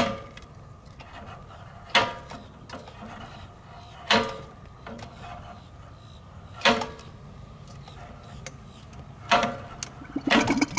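Gurgling puffs of air and oil in a Rotax aircraft engine's oil system, about every two seconds, as the propeller is turned slowly by hand to burp the engine: each turn pushes oil from the crankcase back up into the oil tank.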